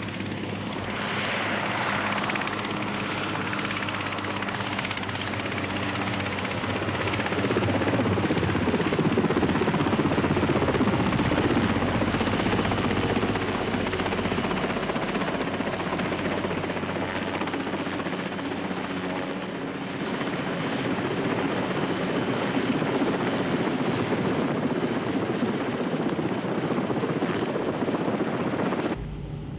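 Westland Wessex helicopter hovering for a winch transfer, a steady rotor and engine noise that cuts off abruptly near the end.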